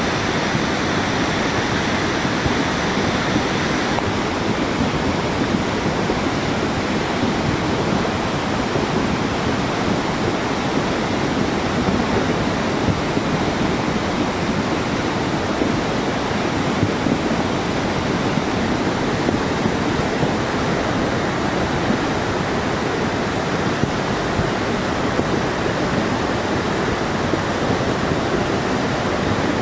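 A big river in flood, brown with landslide mud, rushing fast with a steady, loud roar of water.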